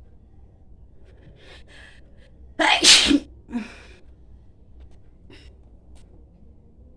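A person sneezes once, loudly and suddenly, about two and a half seconds in. Two short faint breathy sounds come first, and a smaller second burst follows half a second after the sneeze.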